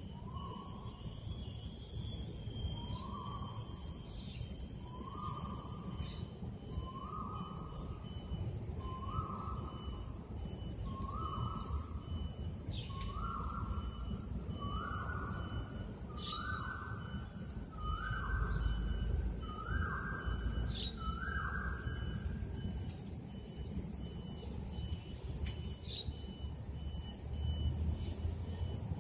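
An animal calling over and over: about eleven short calls some two seconds apart, each pitched a little higher than the last, stopping near the end. Behind it a low rumble of outdoor noise and faint high chirps.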